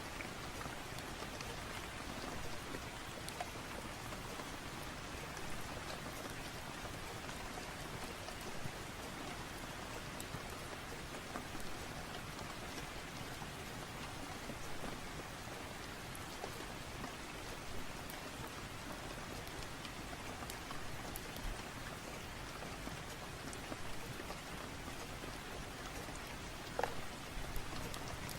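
Steady rain falling, with scattered small pops and crackles from a fireplace fire and one sharper crack near the end.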